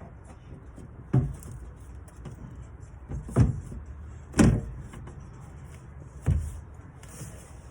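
Sharp knocks and bumps, four or five of them a second or two apart, as the replacement rear door window glass is worked into the door shell, over a steady low hum.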